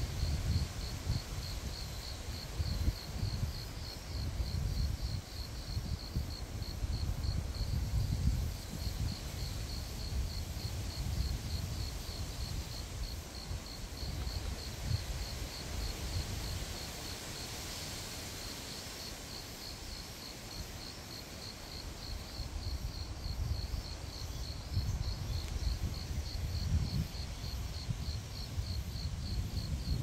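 An insect chirping in a fast, even, unbroken pulse, over a low rumble of wind gusting on the microphone that swells and eases, calmer about two-thirds of the way through.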